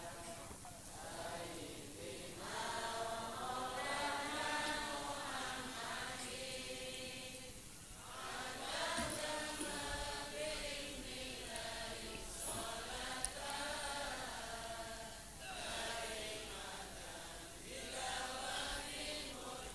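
Faint voices chanting a devotional Islamic verse in long, drawn-out melodic phrases with short breaths between them, well below the level of the preacher's own voice.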